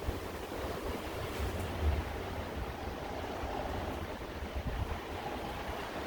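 Blizzard wind blowing steadily, with a gusting low rumble underneath.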